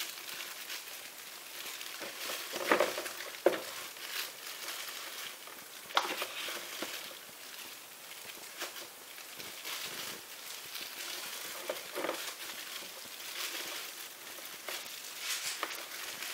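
Thin plastic gloves crinkling and rustling while a wet acrylic-pour canvas is held and tilted, with a few light taps and knocks of the canvas being handled.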